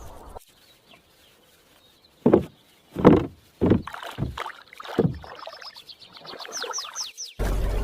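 About five irregular strokes of oars or paddles dipping into water, then a bird chirping in a quick series of falling notes. Near the end a loud steady rushing noise cuts in abruptly.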